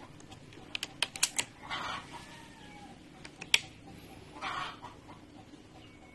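Sharp clicks: a quick run of about five about a second in, then a single louder click midway through, with a few short, softer noisy sounds in between.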